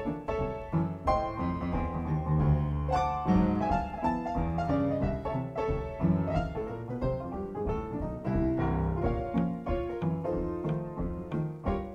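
Background piano music with a steady flow of notes.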